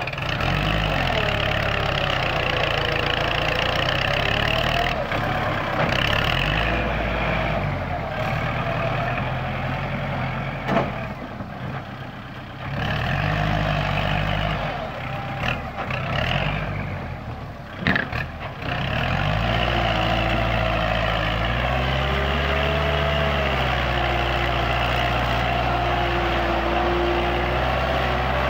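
Kubota L4708 tractor's four-cylinder diesel engine running while it drags soil with a rear grading blade, its pitch drifting up and down as engine speed changes. The sound drops quieter twice in the middle, with a few sharp clicks.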